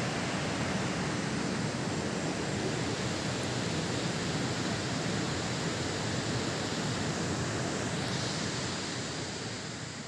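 Steady rushing of a waterfall's falling water, fading out near the end.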